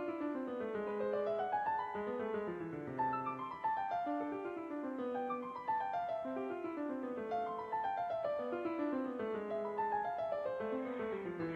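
Background piano music: quick runs of notes rising and falling over and over.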